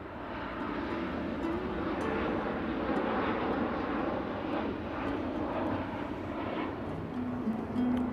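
Jet airliner flying low overhead: a broad engine rumble that swells, peaks a few seconds in, then slowly fades as it passes.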